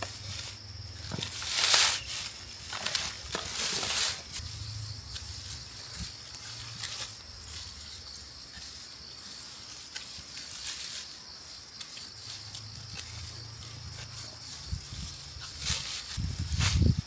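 Dry rice stalks rustling and swishing as rice is cut and handled by hand, with louder swishes about two and four seconds in and again near the end, over a steady high hiss.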